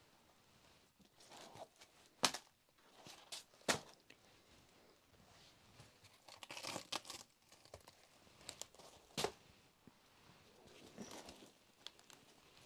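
Tearing and crinkling sounds, with sharp snaps about two, three and a half and nine seconds in.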